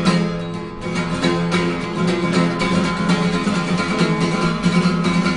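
Instrumental music led by a plucked string instrument, with sustained low tones underneath and a brief dip in loudness just after the start.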